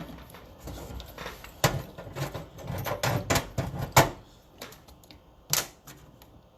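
Irregular sharp clicks and knocks of small hard parts and tools being handled while wiring a connector, loudest about four seconds in, with a last clack near the end.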